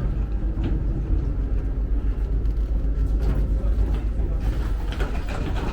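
Steady heavy low rumble of a moving vehicle heard from inside, with scattered light clicks and knocks.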